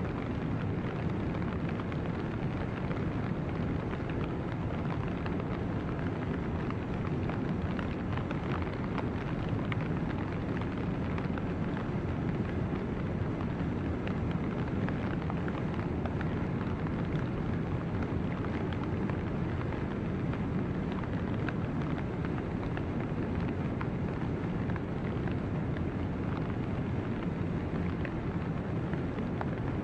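River ice drift: broken floes and slush ice moving and grinding together, a steady low rush with fine crackling throughout.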